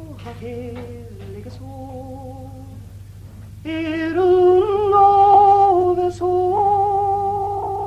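A woman singing unaccompanied: a slow folk melody in long, held notes with vibrato, growing louder about four seconds in.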